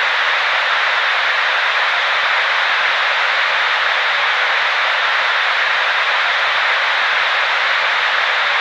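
Steady static hiss, thin and without bass, of a broadcast channel gone dead off the air.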